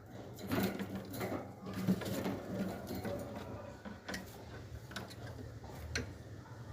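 A parrot's beak working on a piece of cucumber, with irregular quick clicks, nibbling and crunching at an uneven pace.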